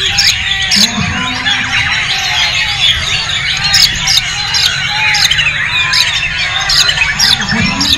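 White-rumped shama singing, a loud, rapid run of varied whistles broken by sharp chips, against a dense chorus of other caged songbirds.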